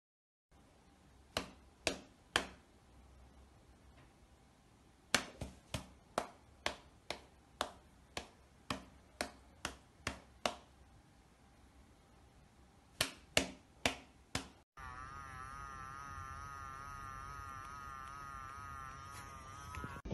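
Sharp smacks in short runs, about two a second, from a cat swatting at a person's hand. For the last five seconds a steady tone that wavers regularly up and down takes over.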